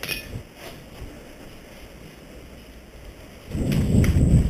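Movement noise on a body-worn action camera: a click at the start, then about three and a half seconds in a loud low rumble with a sharp knock, lasting about a second, as the wearer turns and moves quickly.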